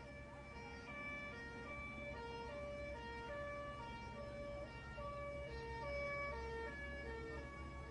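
Emergency sirens, apparently from the airport fire truck: held tones stepping back and forth between several pitches about twice a second, over a low steady engine hum.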